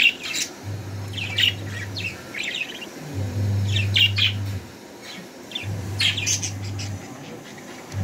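Budgerigar chicks chirping, in quick clusters of short high calls. A low steady hum comes and goes in three regular spells of about a second and a half each.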